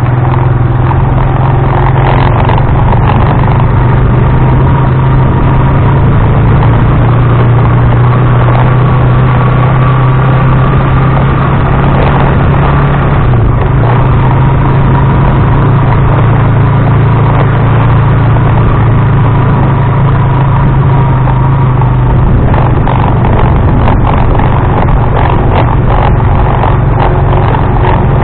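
Motor tricycle's engine running steadily while driving, a loud constant low hum over road noise, with clattering knocks growing more frequent in the last few seconds.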